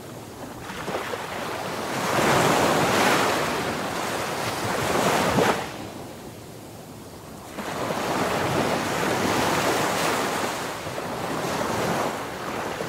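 Rough sea rushing and breaking along a ship's hull, mixed with strong wind buffeting the microphone. The rush swells about two seconds in, drops off suddenly near the middle, and builds again a couple of seconds later.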